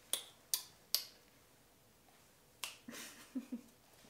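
Close-up eating noises: three sharp mouth clicks in the first second, another about two and a half seconds in, then a few faint soft chewing sounds.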